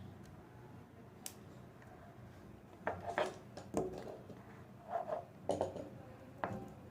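A handful of short clicks and clatters, as of small hard objects being handled, coming in the second half.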